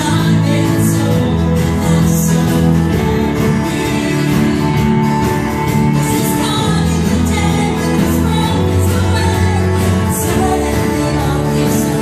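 Live Christian worship song: women singing together into microphones over a band of electric and acoustic guitars and a drum kit, playing steadily.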